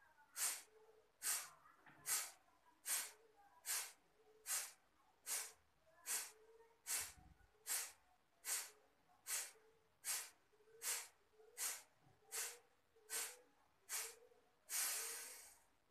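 Kapalbhati breathing: a rhythmic train of sharp, forceful exhalations through the nose, a little over one a second, with quiet passive inhalations between. It ends in one longer exhale near the end.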